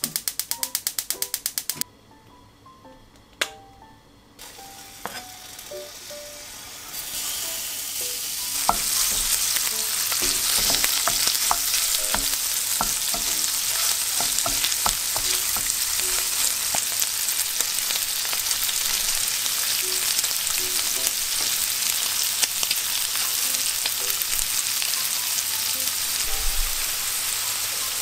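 Rapid, evenly spaced clicking for about the first two seconds. Then, after a quiet spell, pieces of pork start to sizzle in a ceramic-coated frying pan. The sizzle builds over a few seconds and holds steady while a wooden spatula stirs and taps the meat in the pan.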